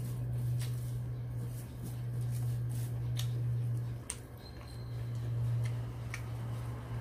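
A steady low hum with a handful of short, sharp clicks scattered over it.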